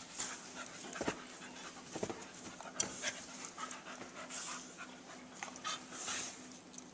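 A dog panting in soft breaths every second or so, with small clicks and rustles of movement on bedding.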